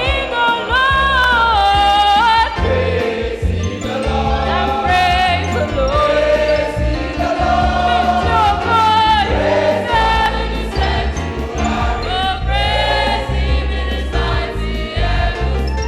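Choir singing a gospel song with vibrato-laden lead and harmony voices over a band with steady bass and drums.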